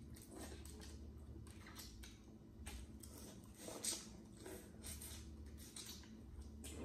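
Boiled crawfish being peeled by hand and eaten: faint cracking of shells and wet squishing and sucking, with a sharper crack about four seconds in.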